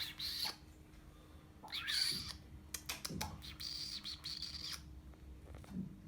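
Persian chinchilla kitten mewing in thin, high-pitched squeaks, three times, the last one longer, with a few soft clicks between the calls.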